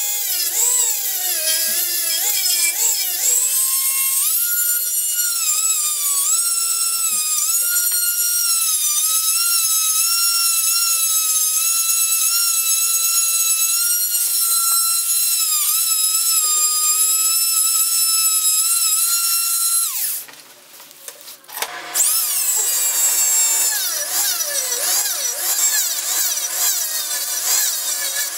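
Small high-speed rotary tool with an abrasive wheel grinding the steel teeth of a pipe vise jaw: a high whine that wavers in pitch as it bears on the metal. It stops about twenty seconds in, then spins back up with a rising whine about two seconds later.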